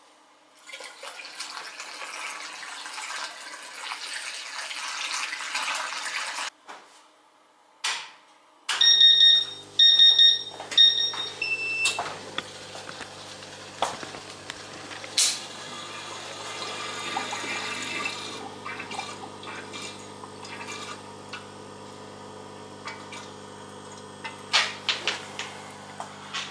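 Water being poured into a CO2 laser's cooling system, then the machine switches on with three beeps and its coolant pump starts a steady hum, pushing out the air bubbles.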